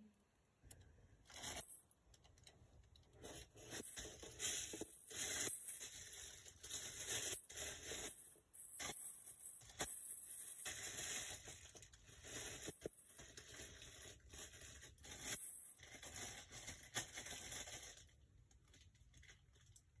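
Packing material being handled and rummaged through: irregular rustling, scraping and crinkling that dies down near the end.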